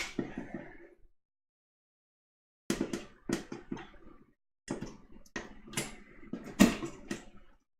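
Hands handling a RAM module: quick clicks and taps on its thin metal heatsink and on the desk as the sticker on it is picked at, in three short clusters separated by silent gaps.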